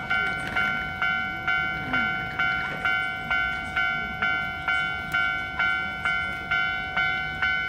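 Keio Electric Railway level crossing warning bell ringing, a steady electronic 'kan-kan' of about two dings a second, each ding fading before the next.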